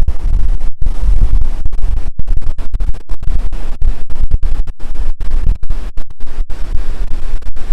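Strong wind buffeting the microphone: a loud, rough low rumble that cuts out for an instant again and again.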